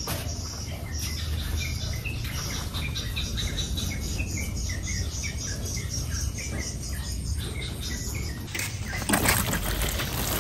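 A bird chirping over and over in short falling notes, about one and a half a second. About eight and a half seconds in, water starts to splash from a watering can onto potted seedlings.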